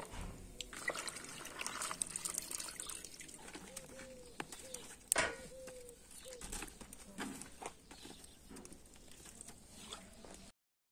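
A dove cooing, a short series of arched notes in the middle, over faint scattered clicks.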